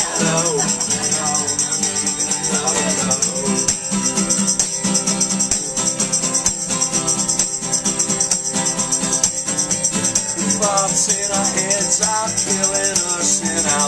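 Two acoustic guitars strummed hard in a fast, steady rhythm: an instrumental stretch of an acoustic song between sung lines.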